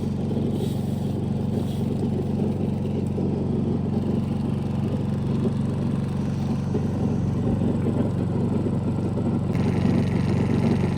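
An engine running steadily at a constant speed, a low even hum with no revving.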